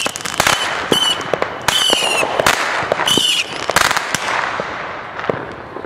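Consumer aerial fireworks going off: a rapid string of sharp bangs and crackles with several short, high whistles, thinning out and growing quieter toward the end.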